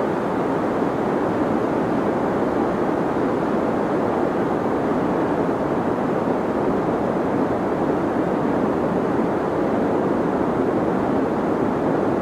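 Deep white noise: a steady, even hiss weighted toward the low and middle range, with little treble and no change in level.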